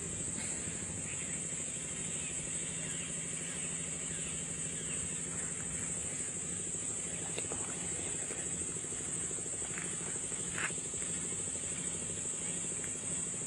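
A steady, high-pitched insect chorus over a low idling engine hum, with a few short bird chirps, the clearest about ten and a half seconds in.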